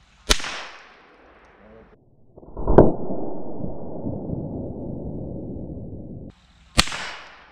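Rifle shots fired at a ceramic armour plate. There is a sharp crack about a third of a second in and another near the end. Between them, about three seconds in, comes a deeper bang followed by a long low rumble that cuts off suddenly.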